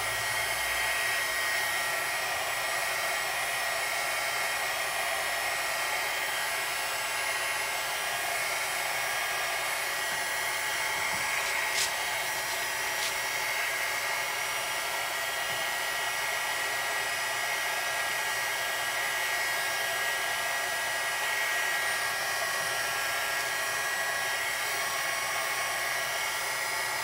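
Craft embossing heat gun blowing steadily: a constant rush of air with a steady high whine from its fan motor, held over thermal receipt paper to heat it.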